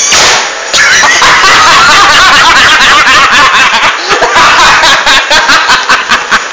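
A sudden loud blast from the car's exhaust as the revved engine lets go, followed by people laughing hard, the laughter breaking into rhythmic bursts in the second half.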